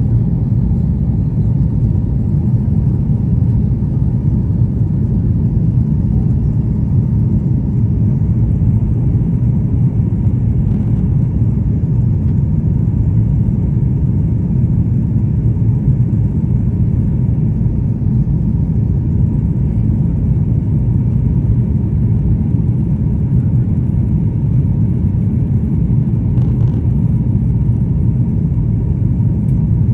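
Steady, even low rumble of an airliner cabin in flight, engine and air noise holding constant.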